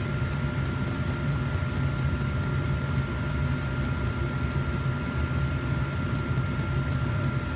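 Diesel heater running, with a steady low rumble from its burner and fan and the fuel pump ticking evenly several times a second, over a thin steady high whine. The owner suspects the pump may be drawing air into the fuel line.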